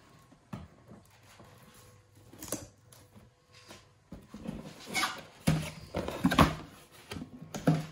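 Cardboard gift box being handled and opened: a couple of light knocks at first, then rustling and scraping as the cardboard flaps are pulled apart, louder over the second half.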